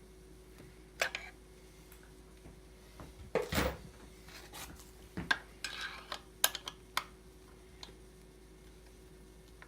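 Metal chainsaw parts and hand tools clinking and knocking on a workbench during assembly: a scatter of sharp clicks and clanks, with a heavier knock about three and a half seconds in and a quick run of clicks around the sixth second.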